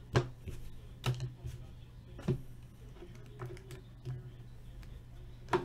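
A few short, sharp clicks, about four, spaced unevenly over a low steady hum.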